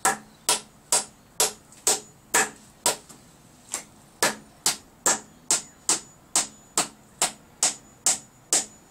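A hammer driving a small nail into wood with steady, even blows, about two a second, with one brief pause around three seconds in.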